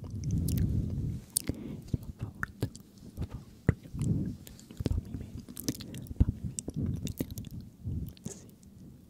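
Close-miked ASMR mouth sounds: many quick wet clicks and smacks, with several soft low swells in between.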